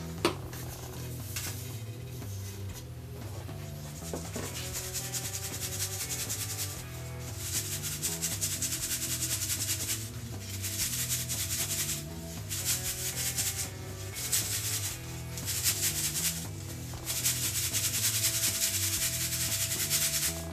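Coarse whole-grain flour being sifted by hand through a round metal sieve: the sieve is shaken in repeated bouts with short pauses, the flour rasping and hissing against the mesh. A single sharp knock just after the start as the metal sieve is set down on the table, with soft background music under it all.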